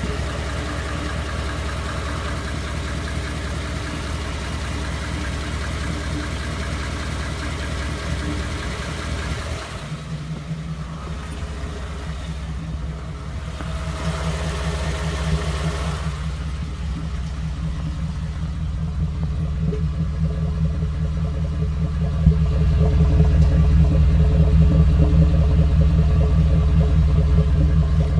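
2014 Ford F-150's 5.0 L V8 idling roughly with a ticking noise, which the owner knows is not normal. The tone shifts about ten seconds in and gets louder for the last few seconds.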